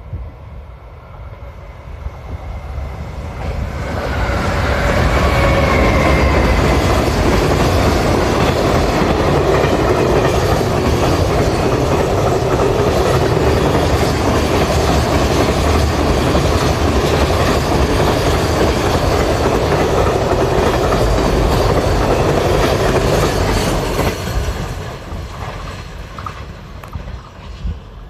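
Freight train of container wagons hauled by an EF510 electric locomotive passing close by. It grows loud about four seconds in, holds at a steady level of wheels running over the rails for some twenty seconds, then fades as the last wagons go by.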